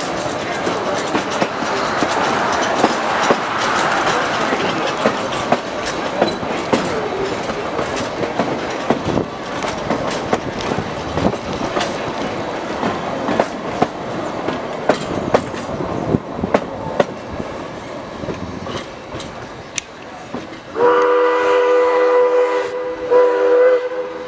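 Excursion train's open cars and caboose rolling past, the wheels clicking over rail joints. Near the end the steam locomotive's Pennsylvania three-chime whistle sounds a chord: one blast of about two seconds, then a second beginning just before the end.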